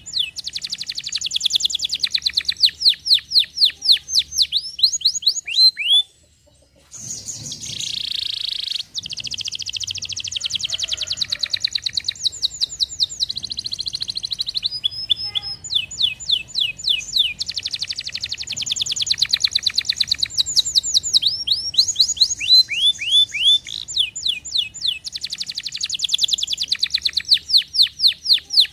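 Domestic canary singing: fast rolls of the same short, high, down-sweeping note repeated many times a second, one roll after another. The song breaks off for about a second roughly six seconds in, then goes on.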